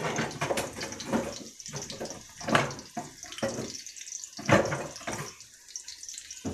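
Sliced onions sizzling in hot oil in a frying pan: a steady hiss with irregular crackles and spatters, two of them louder about two and a half and four and a half seconds in.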